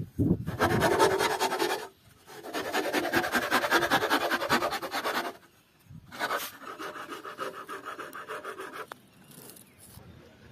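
A flat metal blade scraping and shaving the rim of a black plastic pipe, in three runs of quick back-and-forth strokes separated by short pauses, fading out about nine seconds in.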